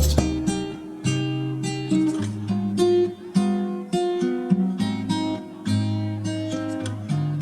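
Background music led by plucked and strummed acoustic guitar, notes changing about every half second.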